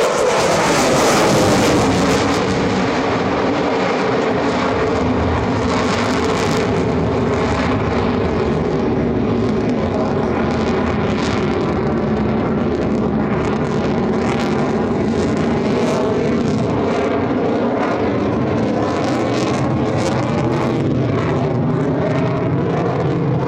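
F-35C Lightning II's Pratt & Whitney F135 afterburning turbofan at full afterburner: loud jet noise that swells to its peak about a second in and then holds steady, with a rough crackle throughout.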